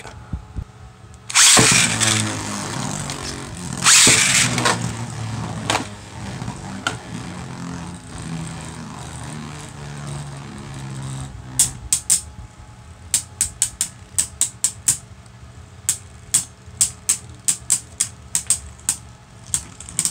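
Two Beyblade Burst spinning tops launched into a plastic stadium, a loud rush about a second and a half in and another about four seconds in, then the tops whirring as they spin in the dish. From about twelve seconds on, sharp clicks of the tops knocking against each other, a couple a second.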